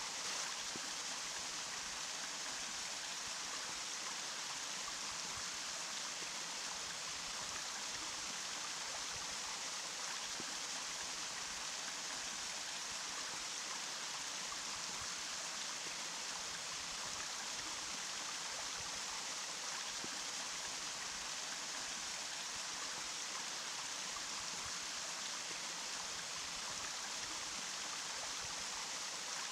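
Running water rushing steadily: an even, hissing wash with little deep rumble and no change in level.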